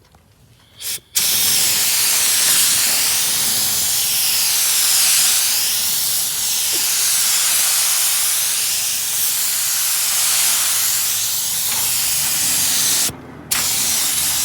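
Paint spray gun hissing as 2K clear coat is sprayed: a short puff about a second in, then a steady air-and-paint hiss that cuts out briefly near the end and starts again.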